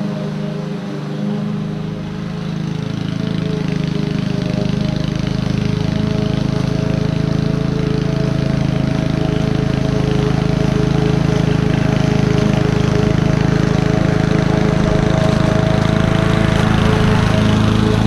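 Honda self-propelled lawn mower's four-stroke engine running at a steady pitch while mulching buffalo grass, growing steadily louder as it comes closer.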